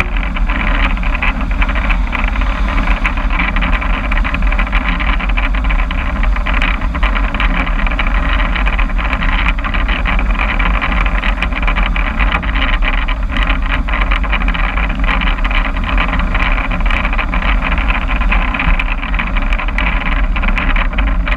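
Vehicle engine and newly fitted exhaust running steadily, with a deep low rumble under a constant rushing noise and no revving.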